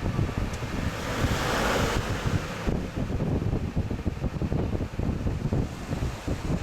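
Haier JA-SP25G spot air conditioner running, its blower's airflow buffeting the microphone with a rumbling wind noise. A brighter rush of air rises about half a second in and cuts off sharply under three seconds in.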